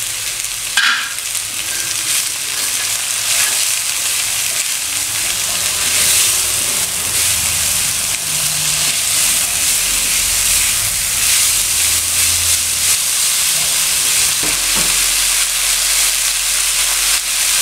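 Chopped cassava leaves with sliced chilies, shallots and garlic sizzling steadily in a hot pan while being stirred with a spatula, with a sharp tap of the spatula about a second in.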